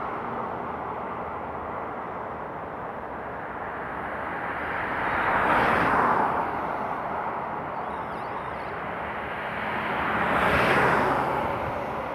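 Cars passing by on a street, each a swell of tyre and engine noise that rises and fades away. Two pass close, one about halfway through and one near the end, over a steady background of traffic.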